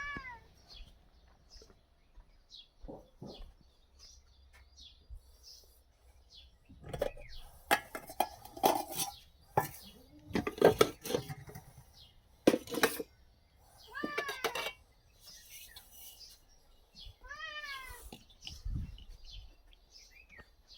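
A cat meowing, short calls that fall in pitch, heard three times, with a run of knocks and clatter in between.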